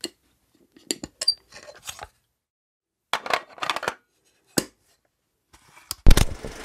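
A scattered run of short, sharp clicks and taps, some in quick pairs and clusters, then a loud thump about six seconds in.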